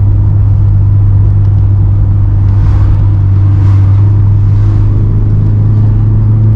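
Honda S2000's four-cylinder engine and Skunk2 MegaPower cat-back exhaust, heard inside the cabin while cruising: a loud, steady, low drone at constant revs.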